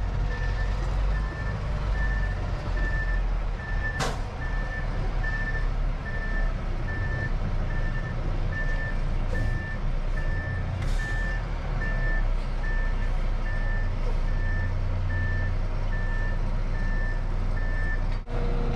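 A backup alarm beeps steadily, about one and a half high beeps a second, over the low running of a concrete mixer truck's diesel engine heard inside the cab. There is a single sharp click about four seconds in, and the beeping stops just before the end.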